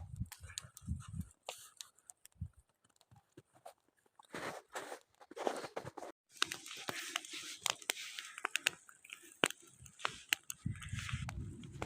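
Campfire burning, the wood crackling with many sharp pops over a rushing hiss of flames. A few low thuds come in the first second.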